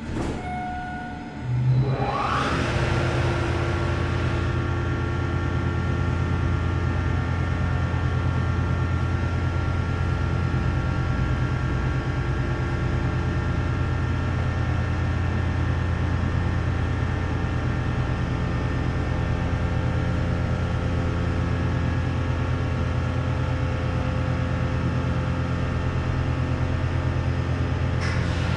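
A Schindler MT/300A hydraulic elevator's dry-mounted pump motor starting about a second and a half in. It then runs steadily with a strong hum and a set of steady whining tones as it pumps the car up.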